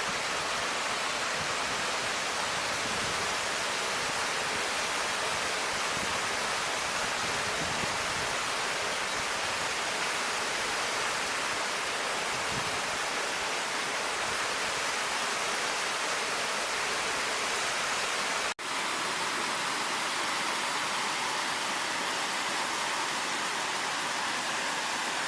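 Mountain stream and waterfall: a steady rush of water over rock. It breaks off for an instant about 18 seconds in and goes on with less low rumble.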